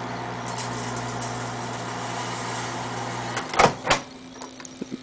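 Microwave oven running with a steady electrical hum while heating a halved grape; the hum drops out about three and a half seconds in as the oven stops, followed by two loud clicks.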